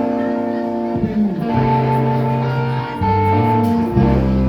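Live rock band playing: electric guitar with sustained notes, and bass guitar notes coming in about a second and a half in, dropping to a deeper note near the end.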